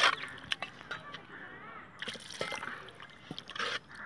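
Metal spoon stirring a thin curry gravy in an aluminium pot: the gravy sloshes and the spoon knocks against the pot a few times in the first second.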